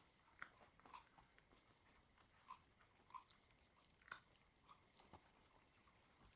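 A wolf-dog puppy chewing raw chicken pieces with bone and cartilage: faint, irregular crunches and clicks as it bites down.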